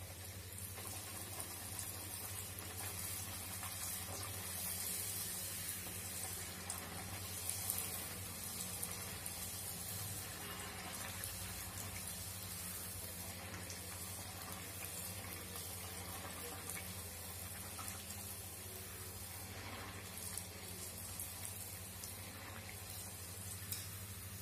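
Layered pathir peni pastry deep-frying in oil in a steel kadai: a steady sizzling hiss over a low steady hum, with a couple of light taps of the wire skimmer against the pan, one about eight seconds in and one near the end.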